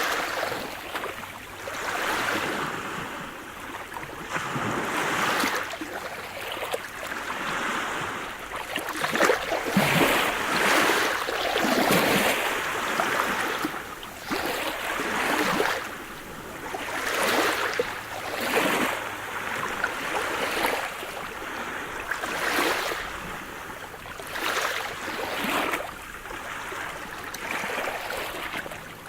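Sea surf: waves breaking and washing in, the rush of water swelling and fading in uneven surges every one to three seconds.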